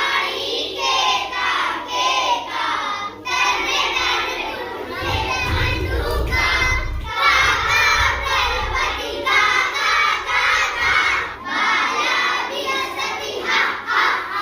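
A group of children chanting loudly together, their voices overlapping into a shouting crowd as they repeat a line of a Sanskrit song. A low rumble sits under the voices for a couple of seconds about five seconds in.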